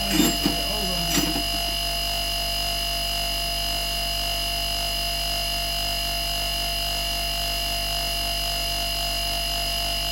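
Motor-driven wire brush running steadily with a constant whine, a few short louder sounds in the first second and a half.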